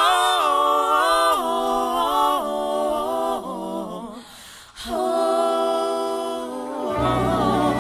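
Music: unaccompanied voices singing held notes, with a brief pause just past the middle, and low instruments coming in near the end.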